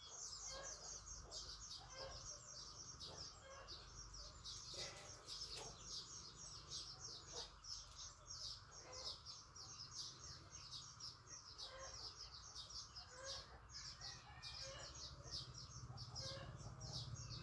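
Many small birds chirping rapidly and without pause, faint, with a few lower clucking notes scattered through.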